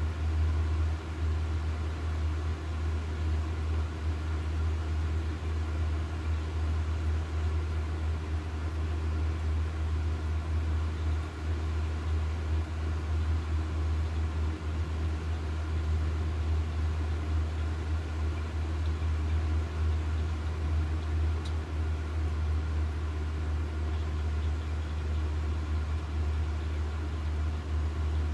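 Steady low rumble of running machinery with a constant hum over it, unchanging throughout.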